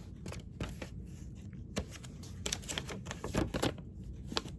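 Irregular light clicks and taps of small jewelry tools, such as pliers, being handled and set down, clustered in a quick run past the middle.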